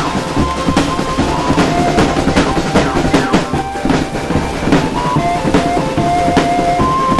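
Marching drum band playing: snare and tenor drums struck rapidly with sticks over a steady bass-drum beat, with a melody of held notes above the drums.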